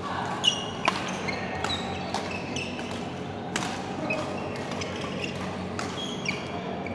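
Badminton rally on an indoor court: sharp racket strikes on the shuttlecock at irregular intervals, the loudest two in the first second, with short high squeaks of court shoes, over a steady hum of the hall and play on neighbouring courts.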